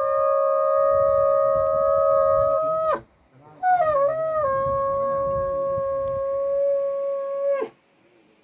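A horn blown in two long held notes. The first breaks off about three seconds in. The second starts with a wavering pitch, settles to a steady tone and stops suddenly shortly before the end.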